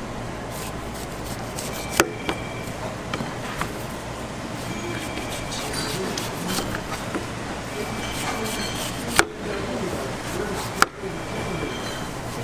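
Knife cutting fruit on a cutting board: scattered light taps and a few sharp knocks, the loudest about two seconds in and twice near the end, over a steady background hum.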